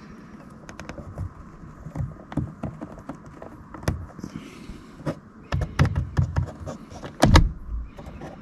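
Scattered plastic clicks and knocks from handling a car door's power window switch, with a quick run of taps a little past halfway and the loudest knock near the end.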